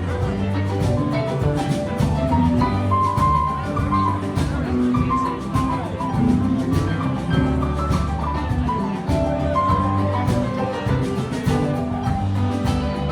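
Live band playing an instrumental passage of the song: drums keep a steady beat under bass and a run of melodic notes, with no singing.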